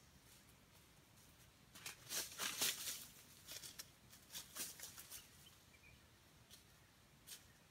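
Dry leaf litter rustling and crackling in a run of short bursts, from about two to five seconds in, as a wild junglefowl moves and scratches through it, with a few lone clicks of leaves later.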